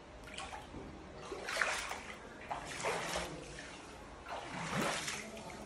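Floodwater sloshing and splashing in about four separate swishes, the sound of someone wading through water covering a house's floor.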